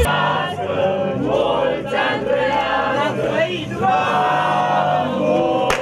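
A crowd cheering and shouting together, many voices overlapping, some calls drawn out.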